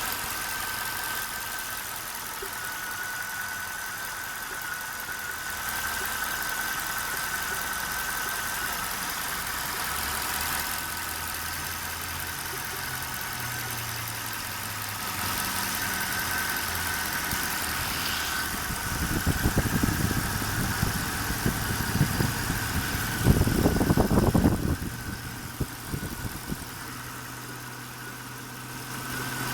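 Mercedes-Benz M273 V8 engine idling, with a steady high whine over the idle. About two-thirds of the way in there are several seconds of irregular popping and stumbling, the intake popping and idle hesitation that the owner traced to misfires from clogged fuel injectors, mainly in cylinder 8.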